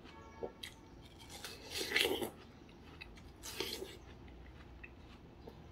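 Biting into and chewing watermelon, a few short wet crunches with the loudest about two seconds in and another around three and a half seconds.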